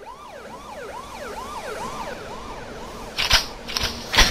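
Emergency-vehicle siren in a quick rising-and-falling wail, about two cycles a second, fading out after about three seconds. Then a few sharp bangs, the loudest just before the end.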